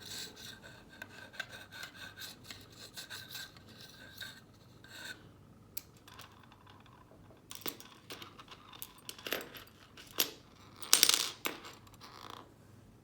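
A steel bolt rubbed back and forth in the hole of a tool magnetizer, a faint scraping, followed by a run of sharp metallic clicks and clinks, the loudest about eleven seconds in.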